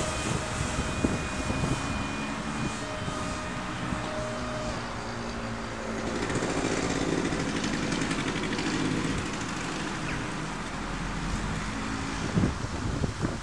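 Steady droning hum of a motor that shifts slightly in pitch, with wind rumbling on the microphone.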